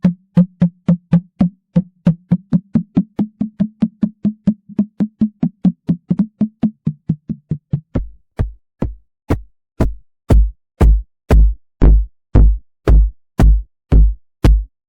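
Synthesized cartoon-style bounce impact effect, repeated: short pitched thumps about four a second, then about eight seconds in slower, deeper and louder hits about twice a second.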